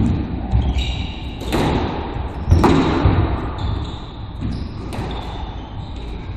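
Squash rally: a squash ball struck by rackets and smacking off the court walls in a string of sharp hits, the loudest about two and a half seconds in, echoing in the enclosed court. Short squeaks from shoes on the hardwood floor come between the hits.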